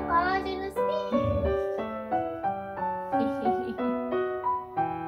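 Light background piano music in a gentle waltz, one note after another, with a brief voice-like sound over it in the first second.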